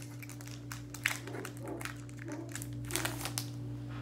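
Plastic wrapper of a trading card pack crinkling and crackling as it is torn open by hand, in a run of short sharp crackles. The sharpest come about a second in and around three seconds in.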